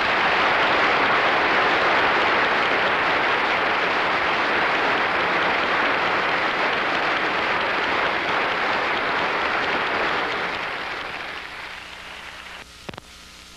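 Audience applauding, steady for about ten seconds and then fading away, followed near the end by a single brief click.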